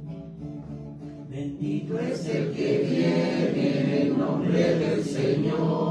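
Several voices singing a hymn together, softer at first and fuller from about two seconds in.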